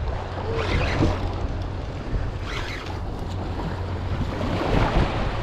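Wind buffeting the microphone in a steady low rumble, with sea surf washing underneath; the wash swells briefly about a second in and again about halfway through.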